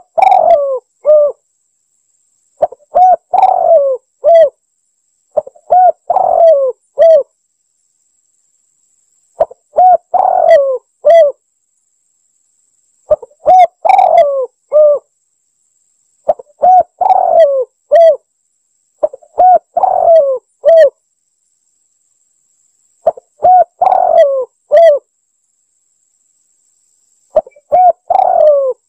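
Spotted dove (tekukur) cooing: a phrase of several low, mellow coos repeated nine times, about every three seconds, with silent gaps between. It is a dove lure call looped for hunting.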